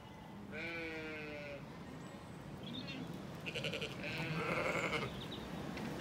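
Zwartbles sheep bleating: a long quavering bleat about half a second in, then a short call and another longer bleat between about three and five seconds in.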